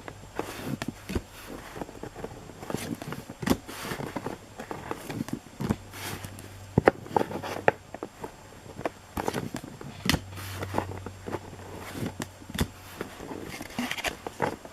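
Baseball trading cards and foil pack wrappers being handled, with irregular crinkles, clicks and taps.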